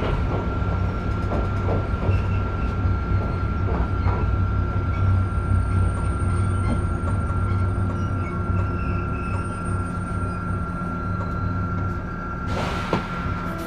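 Oigawa Railway electric train running, heard from inside the car: a steady low rumble with a constant high whine and a few wheel clicks, then a short hiss near the end.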